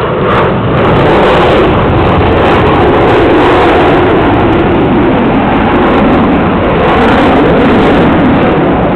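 F-16 fighter jet flying overhead: a loud, steady rush of jet engine noise that swells about a second in and then holds.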